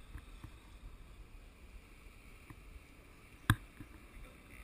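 Faint low rumble of movement and wind on the camera's microphone, with a few soft knocks and one sharp click about three and a half seconds in.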